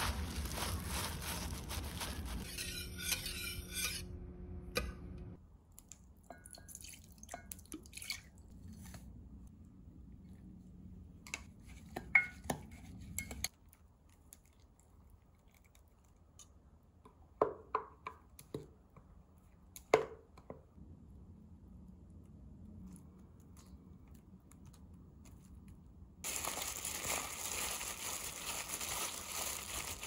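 Kitchen handling sounds from making green onion kimchi. Plastic-gloved hands rustle green onions in a stainless steel bowl at the start, a wooden spoon and the bowl knock sharply against a glass measuring jug of chili seasoning several times in the middle, and gloved hands rustle and squish the onions through the seasoning paste near the end.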